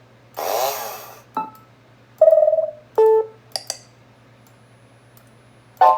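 A string of short Mac OS 9 system alert sounds, about six in turn, each brief, played at full volume through an iMac G3's built-in speakers, with a pause before the last one near the end. The newly replaced speakers play them clearly.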